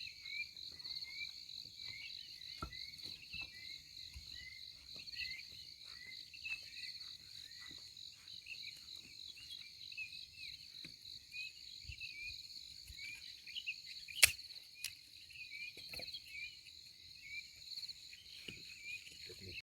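Insects, crickets by the sound of it, trilling steadily, with many short high chirps over it. A single sharp click about 14 seconds in.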